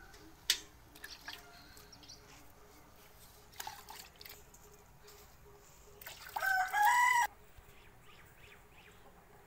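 A rooster crows once, the loudest sound, for a little over a second about six seconds in. Underneath, faint squirts and drips of milk into a steel bucket as a cow is milked by hand.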